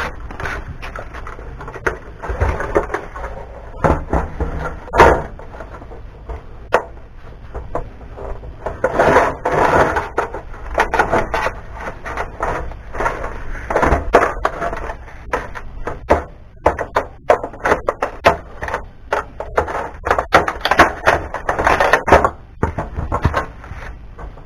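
Sheet-metal case of a home-theater sound system unit being handled and taken apart with hand tools: irregular clanks, knocks and clicks of metal, with short stretches of scraping. The sharpest knock comes about five seconds in.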